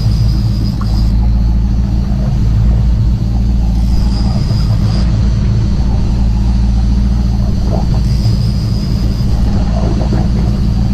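A boat's engine running steadily at trolling speed: a loud, even, low drone. A thin high whine rises above it three times, each for about a second.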